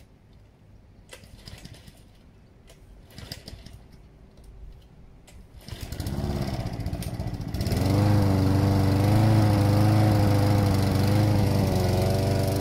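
A few faint knocks, then a walk-behind lawn mower's petrol engine starts a little after halfway through. It picks up speed and runs loud and steady, its pitch wavering slightly.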